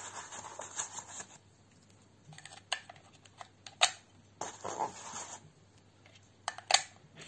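A plastic wireless-earbud charging case being handled: brief rustling and a few sharp clicks as fingers work the earbuds in the open case, the loudest click near the end.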